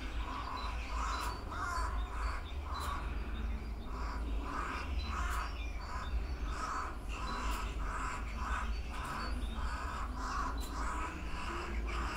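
Jackdaw calling over and over, a long run of harsh caws, irregular at first and then steady at about two a second, over a low steady rumble.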